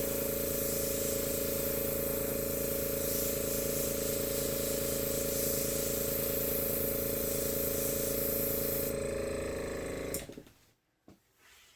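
Electric air blower running steadily, a motor hum with a hiss of rushing air, blowing out wet acrylic paint on a canvas. The air hiss stops about nine seconds in, and the motor winds down and falls silent about a second later.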